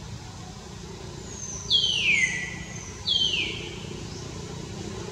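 Two high animal calls about a second and a half apart, each sliding down in pitch.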